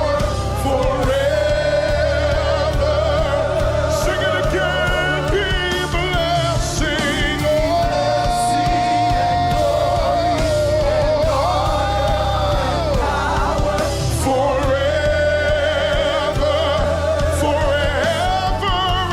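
Live gospel worship music: a voice sings long, wavering held notes over a band with a steady bass.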